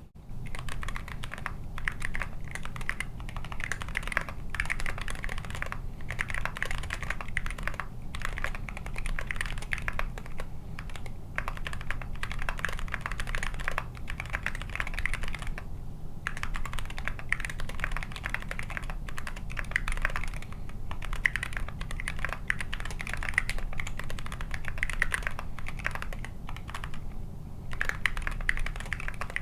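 Continuous fast typing on a TKC Candybar mechanical keyboard with Zealio V2 tactile switches, KAT Cadet keycaps and a carbon fiber plate: a dense stream of key clacks with a few brief pauses.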